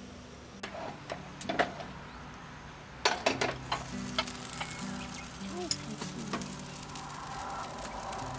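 Food sizzling in a hot pan, the sizzle growing louder about three seconds in after a few sharp clicks and knocks of a utensil or food against the pan. Background music with low held notes runs underneath.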